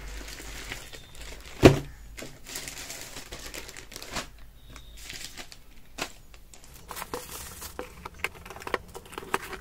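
Packaging being handled in an unboxing: crinkling and rustling with scattered clicks, and one sharper click about a second and a half in.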